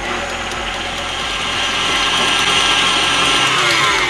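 Electric stand mixer running, its beater churning flour, eggs and milk into a soft spaetzle dough. The motor's hum grows louder about a second in, then falls in pitch near the end as the mixer slows.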